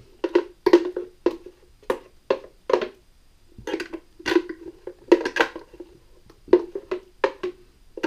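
Hollow plastic knocks and wet scraping as a hand scoops thick marinade out of a clear plastic container. The knocks come in irregular clusters, about two a second, with a short pause about three seconds in.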